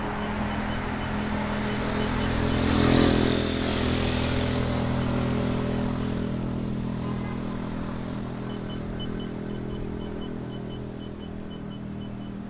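Road traffic: a motor vehicle passes close by, its engine and tyre noise swelling to a peak about three seconds in and then fading, over a steady engine hum. A faint, rapidly repeating high beep starts in the second half.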